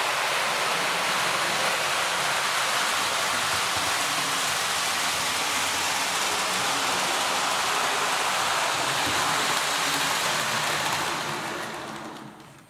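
OO gauge model train running on the track: a steady rolling rush from the rolling stock's wheels on the rails, with the Accurascale Class 92 locomotive's motor running quietly underneath. It fades away near the end as the train slows to a stop.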